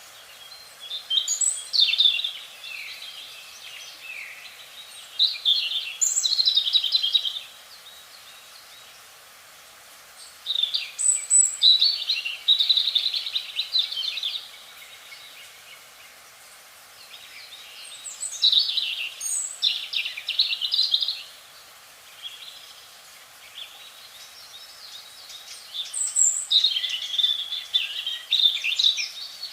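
A songbird singing: five phrases a few seconds apart, each opening with a high falling note and running into a fast, jumbled warble, over a steady faint background hiss.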